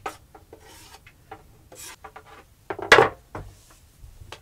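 Kitchen handling sounds during food preparation: a string of light clicks and knocks from dishes and utensils, with one louder, brief clatter about three seconds in.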